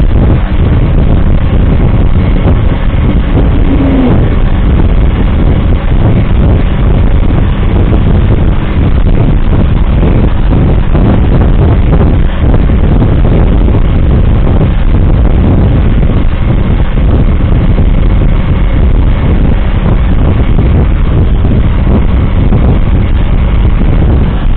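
Loud, steady engine and road noise of a vehicle on the move, heard from inside it.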